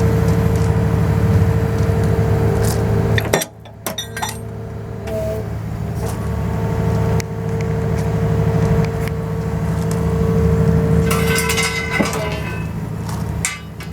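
Hydraulic demolition shear on its carrier machine running: a steady engine hum with a hydraulic whine over it, cutting off abruptly about three and a half seconds in and building back up. From about eleven seconds in there is metallic clinking and rattling.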